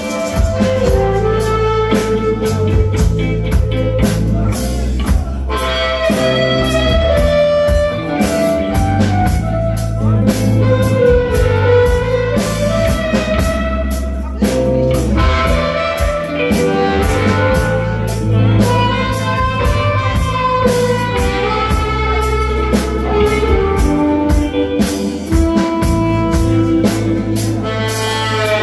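Live blues-rock band playing: electric guitars with harmonica over a steady beat and a shaken tambourine.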